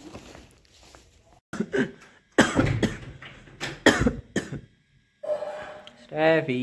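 A person coughing in a short fit of several harsh coughs, followed by a brief voice sound near the end.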